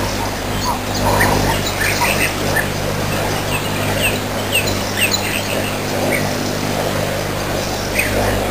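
Birds chirping, short calls scattered throughout, over a steady low hum and hiss.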